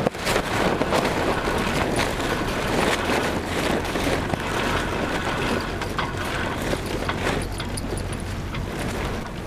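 Wind rushing over the microphone, with the cloth of a headsail flapping and rustling irregularly as it is lowered onto the foredeck of a sailboat under way.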